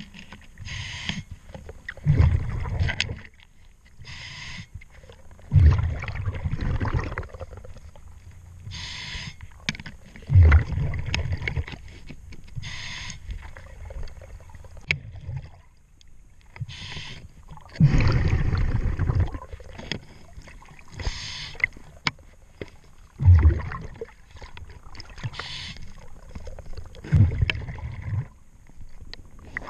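Scuba diver breathing through a regulator underwater: a short hiss on each inhale, then a low bubbling rumble of exhaled air, repeating about every four seconds.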